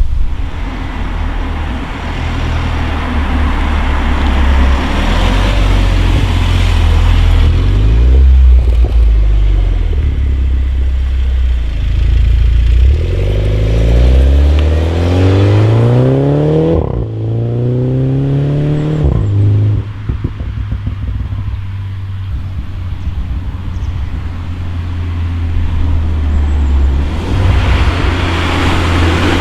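MINI John Cooper Works 2.0-litre turbocharged four-cylinder engine through a Maxi-Tuner valved rear silencer, driven under load. The revs climb in two pulls about halfway through, each cut off by a drop at a gear change, then run steadily at lower revs and rise again near the end.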